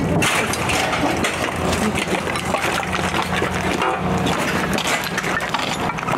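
Footsteps, crunching debris and gear rattling as someone walks close behind another person with a pack, many short irregular clicks and scrapes, over a steady low hum.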